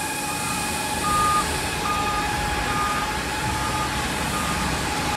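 Road traffic on a wet road: tyres hissing through water as cars and a tanker truck pass. Over it runs a steady tone and a string of short beeps a little under a second apart, like a vehicle's reversing alarm.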